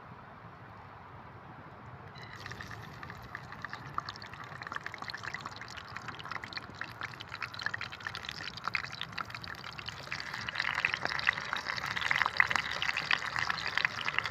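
Taro pieces sizzling in hot cooking oil: a dense, crackling sizzle that starts about two seconds in and grows louder toward the end.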